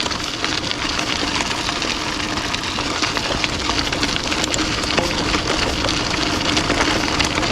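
Klein Attitude Race mountain bike rolling over gravel: a steady crunch from the tyres, thick with small clicks and rattles, and a faint steady hum underneath.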